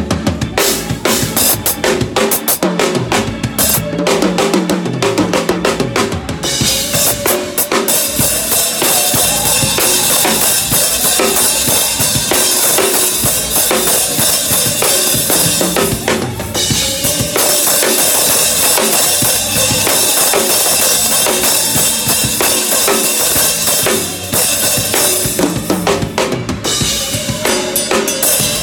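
Drum kit played in a groove, with bass drum, snare and cymbals. A thick cymbal wash comes in a few seconds in, breaks off briefly about halfway, and thins out again near the end.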